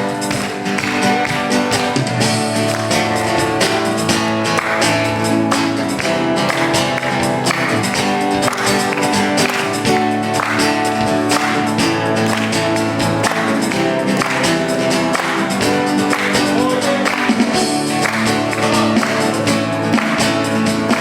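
Church worship band playing instrumental music: sustained chords over a steady beat, with no singing.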